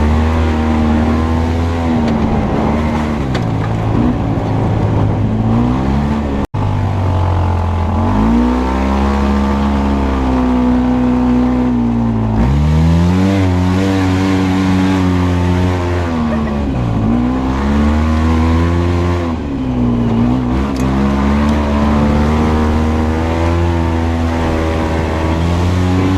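Off-road vehicle's engine running hard, its pitch falling and climbing again every few seconds as the throttle comes off and goes back on over rough ground. The sound cuts out for an instant about six and a half seconds in.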